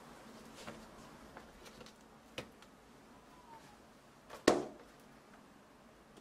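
Light taps of ears of corn being laid into a bamboo steamer, then one louder wooden knock about four and a half seconds in as the steamer is handled and its woven bamboo lid goes on.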